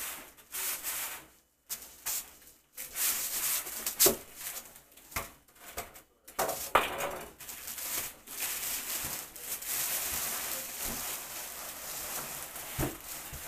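Unpacking noises: a foam packing insert scraping out of a cardboard box, with a few sharp knocks, then a plastic bag rustling steadily through the second half as it is pulled open around the packed item.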